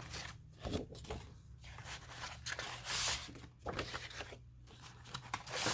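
Paper and card rustling and crinkling in irregular bursts as a box of paper craft ephemera is rummaged through, the loudest rustle about three seconds in.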